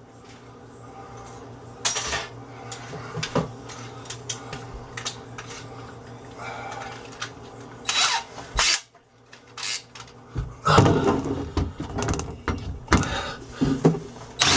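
Clicks and knocks of a drill being handled while a larger bit is fitted, then, about ten seconds in, an electric drill boring through iron with a big bit in short, irregular bursts.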